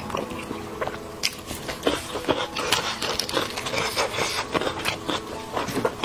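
Close-miked eating sounds: chewing and biting, then crackling and snapping as a cooked spiced sheep's head is pulled apart by gloved hands, bone and cartilage breaking.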